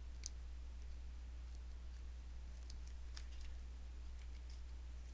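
Faint, scattered clicks and scrapes of a spudger prying along the edge of an HTC Evo's display to break the screen adhesive, over a steady low hum.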